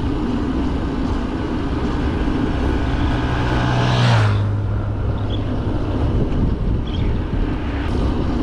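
A motor vehicle overtakes a cyclist: its engine hum and tyre noise build up, then drop in pitch as it passes about four seconds in, over steady wind and road rumble from riding.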